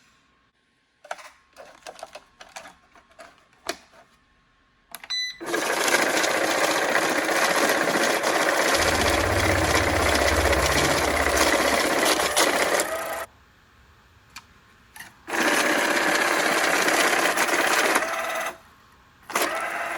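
Cash counting machine running a stack of one-dollar bills: a few handling clicks, a short beep, then a steady whirring riffle of bills for about seven seconds that stops, runs again for about three seconds, and gives one more short burst near the end.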